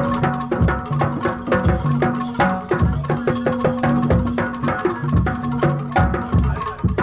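Jaranan Dor ensemble playing: drums and tuned gongs in a fast, driving rhythm over a long held low tone.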